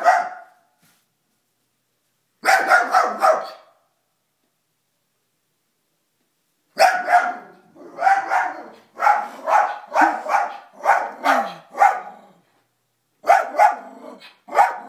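Dachshund barking in short bursts of rapid, sharp barks, with pauses of a few seconds between the bursts.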